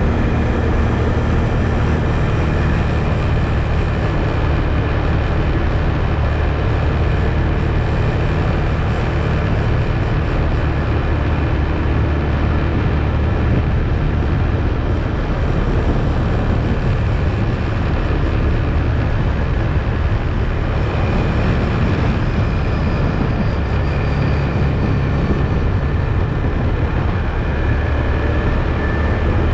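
ATV engine running steadily while the quad is driven, a constant low drone with rumble from the ride.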